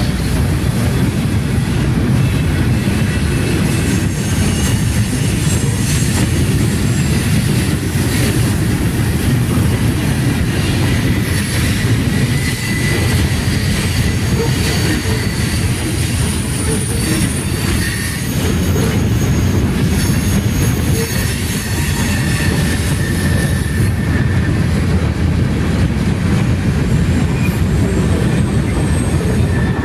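Freight cars of a long train rolling past at track speed: a steady rumble of steel wheels on rail, with faint wheel squeals coming and going.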